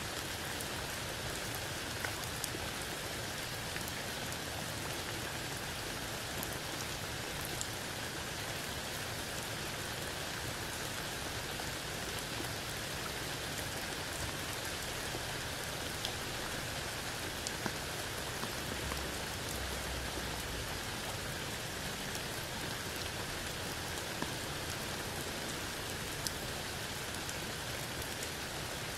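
Steady rain falling under a tree canopy onto leaves, grass and a puddled dirt patch, with scattered louder single drops.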